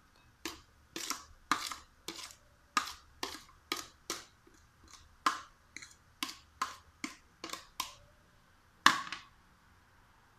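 Metal fork tapping and scraping against a plate as chopped vegetables are pushed off it into a glass bowl: a quick run of about twenty sharp clicks, then one louder knock about nine seconds in.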